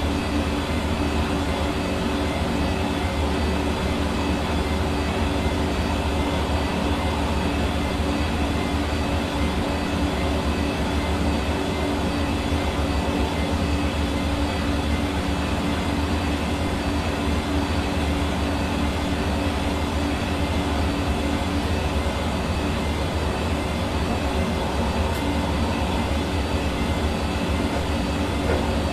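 Hair dryer running steadily, its motor hum and fan whoosh of air holding an even pitch and level throughout.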